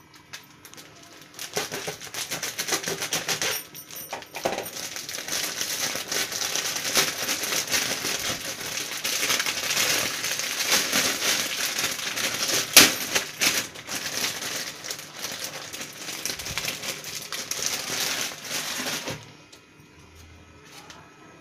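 A plastic bread bag crinkling and crackling as it is handled and opened, with one especially sharp crackle about two-thirds of the way through. The crinkling stops about two seconds before the end.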